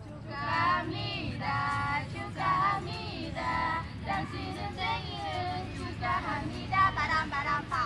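A small group of women singing together, their voices high and unpolished, over a low background rumble.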